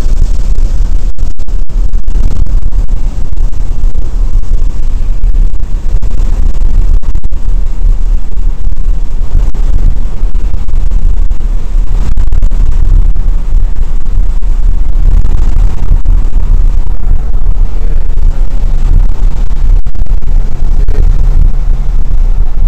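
Inside the cabin of a Porsche 997 Turbo at speed on a wet track: its twin-turbo flat-six engine and tyre and road noise run together as a continuous heavy low rumble, recorded so loud that it is overloaded.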